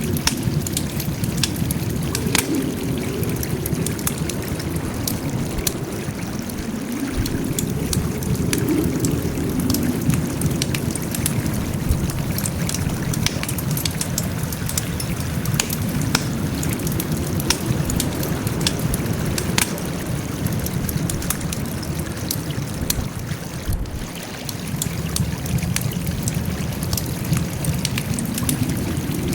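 Wood campfire crackling: many scattered sharp pops over a steady low rush from the burning fire, which swells and eases every few seconds.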